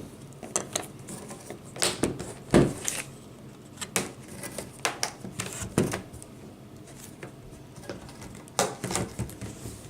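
Scattered sharp plastic clicks and taps as a laptop's display bezel and screen panel are worked loose by hand, the loudest about two and a half seconds in.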